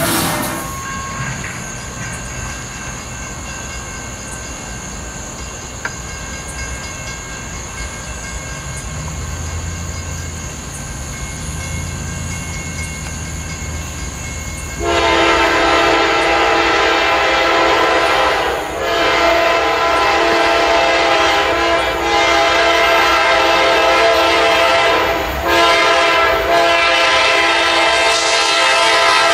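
Diesel locomotive's multi-tone air horn sounding repeated long blasts from about halfway in, broken by two short gaps. Before the horn there is a quieter low rumble of rail traffic.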